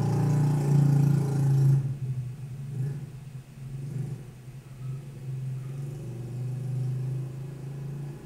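A motor engine running steadily, with a low hum that is loudest for about the first two seconds and then settles lower.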